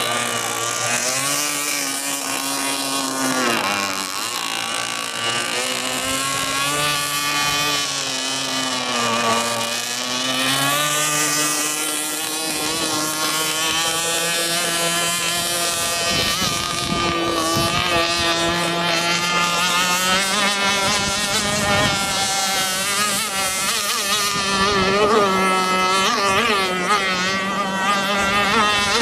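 Radio-controlled F1 racing boat with twin stock Zenoah G260 two-stroke engines and a 1-inch pipe, running at speed. The engine note rises and falls again and again as the boat circles and changes throttle.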